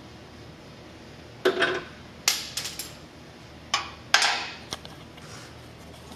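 Hand tools clanking against metal: a handful of sharp metallic clanks and clinks. The loudest come about a second and a half in and again around four seconds, each ringing on briefly.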